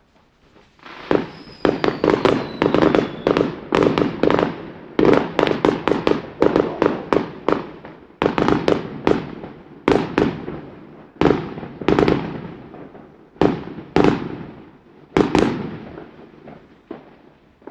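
Fireworks exploding in rapid succession, with tightly packed volleys of sharp bangs for the first half, then single loud reports about once a second that thin out near the end. A thin falling whistle sounds about two seconds in.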